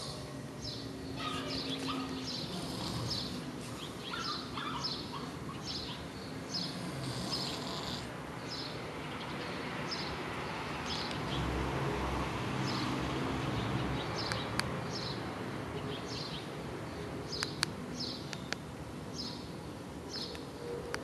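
Snoring in slow swells, with birds chirping over and over in the background.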